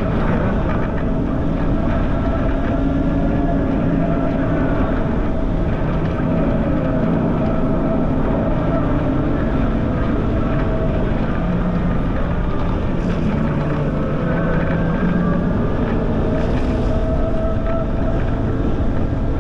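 Heavy wind buffeting on a camera microphone riding at speed on a Ryvid Anthem electric motorcycle, with a steady rumble. Faint humming tones drift up and down in pitch underneath.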